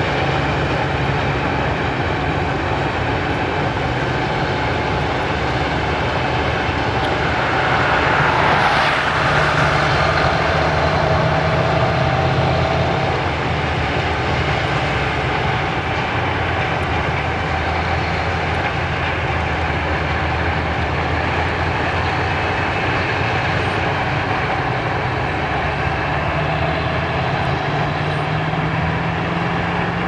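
Heavy diesel farm machinery running steadily under load, a continuous engine drone, with a louder rushing swell about eight to ten seconds in.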